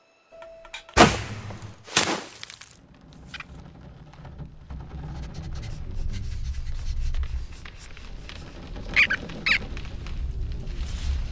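Cartoon sound effects with no music: two sharp cracks about a second apart, starting about a second in, as a drawn bowstring is let go. Then a low rumbling swish slowly builds, with two short squeaks near the end.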